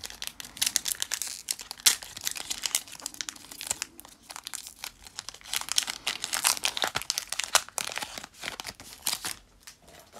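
Foil wrapper of a Pokémon trading card booster pack crinkling and tearing as it is torn open by hand: a dense run of sharp crackles that thins briefly about four seconds in and stops just before the end.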